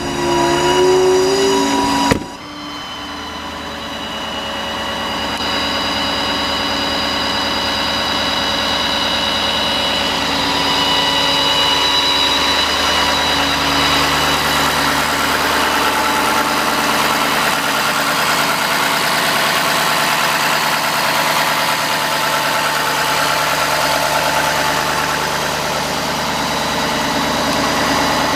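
Ford F-550 utility truck engine idling with its Chelsea PTO engaged, a steady high whine of several tones riding over the engine. There is a sharp thump about two seconds in.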